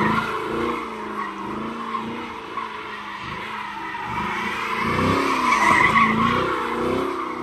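A car sliding in circles with its tires squealing, the engine revving up and down under the squeal, loudest about five to six seconds in.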